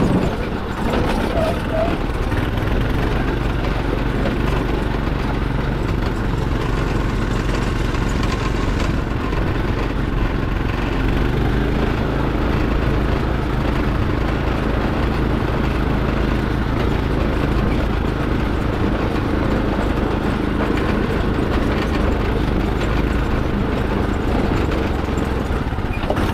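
Off-road go-kart's engine running steadily while the kart is driven along a dirt trail, holding a near-constant pitch.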